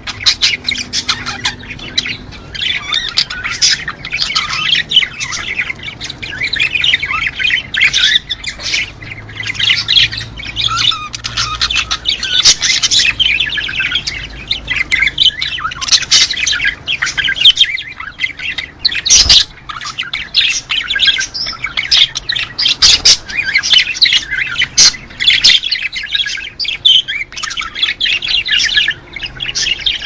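Budgerigars chattering and warbling in a dense, unbroken stream of quick chirps, clicks and sharp squawks: the busy flock chatter played to caged budgies to encourage breeding.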